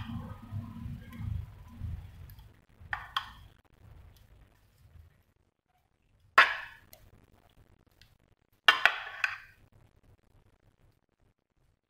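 A spoon clinking and knocking against a dish as béchamel sauce is spooned out: a few sharp clinks, the loudest about six and nine seconds in.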